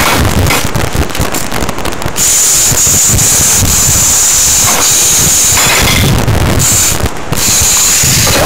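Loud, harsh crackling noise with a steady high whistle that comes in about two seconds in and breaks off briefly twice.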